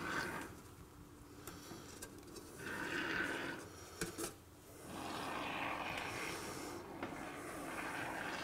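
Faint hiss of a can of expanding spray foam being dispensed, in two spurts: a short one about two and a half seconds in and a longer one from about five seconds on, with a sharp click between them.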